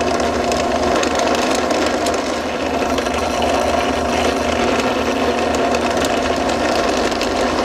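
Benchtop drill press running steadily, its 5/16-inch twist bit drilling into a wooden block. The bit is pulled up out of the hole and fed back in partway through.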